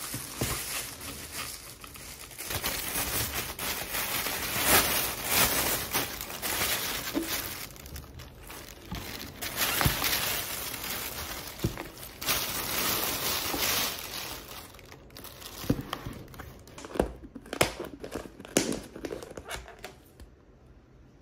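Thin plastic carrier bag rustling and crinkling as it is untied and opened, with several sharp plastic clicks near the end as takeout containers are handled.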